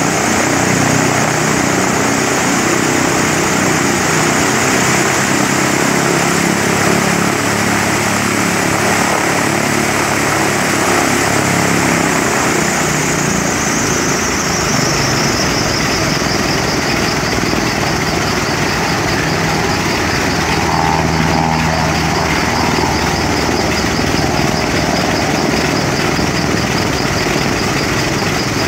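A Lockheed P-2 Neptune's Wright R-3350 radial piston engine runs steadily with its four-blade propeller turning. A high whine in the sound drops in pitch about halfway through and then holds at the lower pitch.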